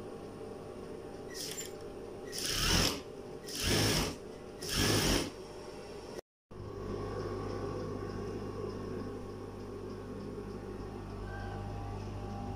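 Industrial lockstitch sewing machine stitching stretch fabric in three short runs, each under a second and about a second apart. After a brief dropout about six seconds in, a steady low hum remains.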